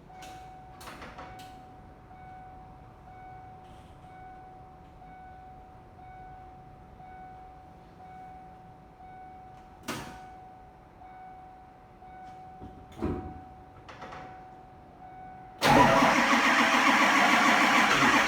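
A 1997 Ford F350's 7.3 L Powerstroke turbo-diesel V8 being cold-started at about −8 °F. After a long quiet wait with a faint steady high tone and a couple of clicks, the engine fires abruptly near the end and keeps running loudly.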